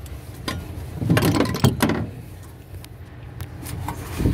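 Metal knocks and a rattling scrape from tools and parts being handled around the engine's timing gears, loudest about a second in, with a steady low hum underneath.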